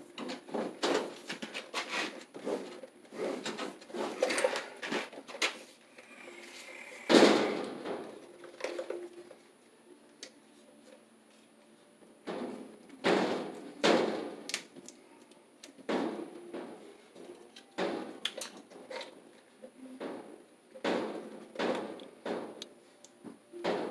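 Irregular knocks, clicks and rustling of hands and a hand tool working electrical cable at a breaker panel, with one louder knock about seven seconds in.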